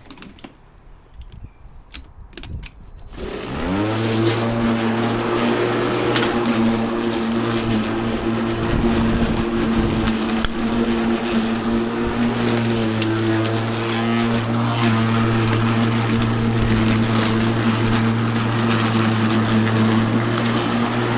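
Ozito PXC 36V cordless lawn mower: a few clicks, then about three seconds in its electric motor spins up quickly and runs with a steady hum.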